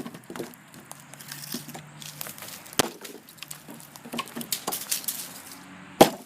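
SOG Fast Hawk tomahawk chopping into a thick branch: two sharp strikes about three seconds apart, the second the loudest, with light crackles and clicks of wood between.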